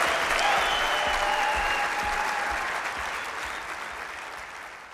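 Audience applauding, the clapping steadily dying away.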